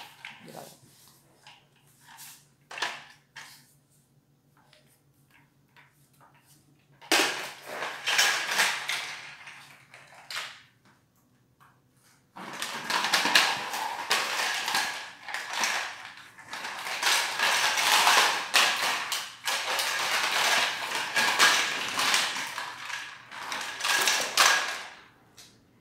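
A puppy playing with a plastic toy ball on a tiled floor, mouthing and pushing it. Scattered light clicks and taps come first. Long stretches of clattering and scraping follow, from about seven seconds in and again from about twelve seconds in.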